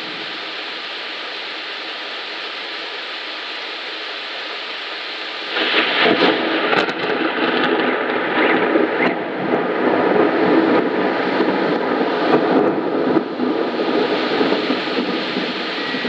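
Heavy rain pouring steadily, then about five seconds in a loud crack of thunder that breaks into a long rumble of about eight seconds before dying back to the sound of the rain.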